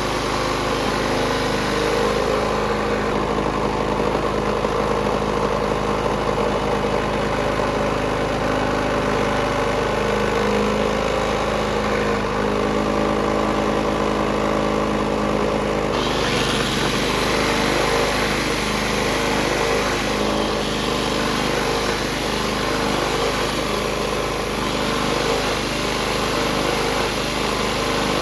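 Small single-cylinder KisanKraft petrol engine of a restored Honda generator running steadily. The sound turns brighter and harsher about halfway through.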